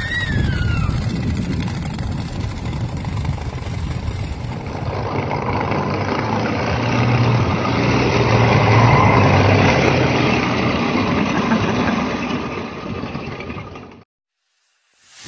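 1930 Ford Model A snowmobile conversion running and driving on homemade tracks, a steady low engine rumble that grows louder about eight to ten seconds in. It cuts off suddenly near the end and is followed by a short swoosh.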